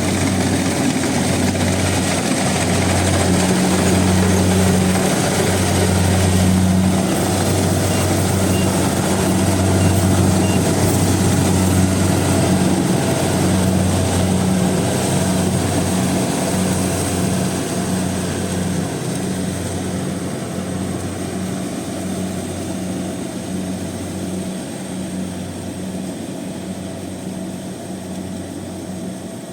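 Rice combine harvester running steadily under load, its engine humming low and the threshing machinery adding a wide mechanical rush; the sound grows quieter over the last third.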